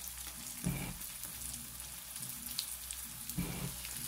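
Coated potato wedges frying in shallow oil in a pan: a steady sizzle with fine crackling, and two brief low thuds, about a second in and near the end.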